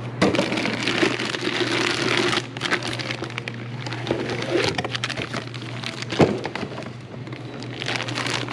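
Plastic bag crinkling and cardboard box rustling as a new engine piston-and-liner assembly is unwrapped and lifted out of its packaging, densest in the first couple of seconds. A single sharp knock comes about six seconds in.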